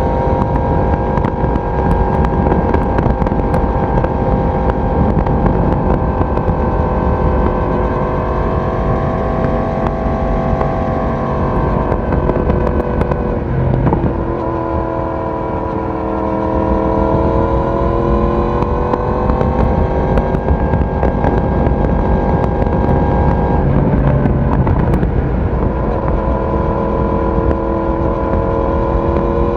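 Yamaha YZF-R1's inline-four engine and exhaust running under way at a steady cruise; about halfway through the pitch drops and the sound eases off as the throttle closes, then climbs again as the bike picks up speed.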